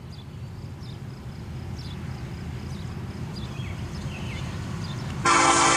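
Diesel locomotive air horn, an NS SD70ACe leading a freight train, starting a loud blast about five seconds in: a chord of several steady tones. Before it, a low rumble slowly builds as the train approaches, with faint bird chirps over it.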